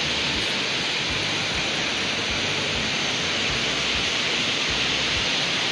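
Steady rushing of flowing water, an even hiss with no change in level.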